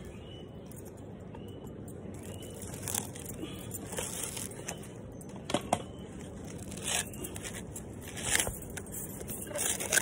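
Dry coconut husk fibres being ripped and pulled apart by hand from a sprouted coconut: irregular tearing and scraping strokes, a few louder rips in the second half.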